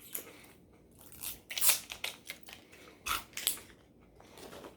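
Plastic wrapping crinkling and tearing in a few short bursts as it is handled and peeled, most likely the seal being stripped off a Ramune soda bottle's cap opener.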